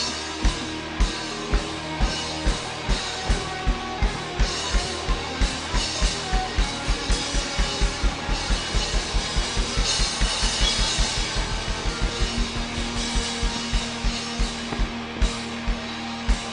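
Live rock band playing an instrumental outro without vocals: a drum kit drives a steady bass-drum beat with electric guitar. The drum hits come faster with a cymbal wash around the middle, and a low note is held through the last few seconds.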